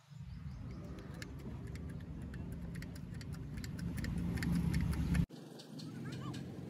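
Hydraulic bottle jack being pumped under a tractor's transmission housing: repeated short metallic clicks over a steady low hum. The sound cuts off abruptly about five seconds in, and scattered clicks follow.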